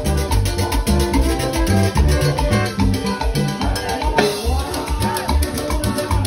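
Live Latin dance band playing: a pulsing bass line and percussion, with a metal güiro scraping in a steady rhythm and an acoustic guitar strumming.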